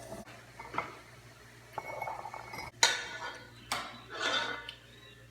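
A metal utensil clinking and scraping against a saucepan: a few sharp, ringing clinks, the loudest about three seconds in, with softer scraping between them.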